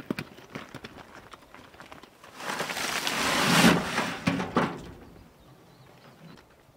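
Broken brick rubble tipped out of a steel wheelbarrow, sliding and clattering onto a pile for about two seconds, starting a couple of seconds in. Before that, scattered knocks and steps as the loaded barrow is wheeled up.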